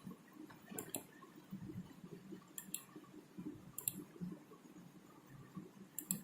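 Computer mouse clicking: sharp clicks, mostly in quick pairs, four times over a faint low background.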